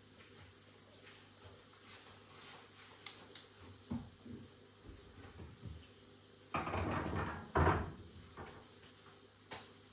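Kitchen handling noises at the sink: soft rustling and light knocks, then, about seven seconds in, a loud rough noise lasting about a second that ends in a sharper, louder knock, like a cupboard or an object being moved and set down.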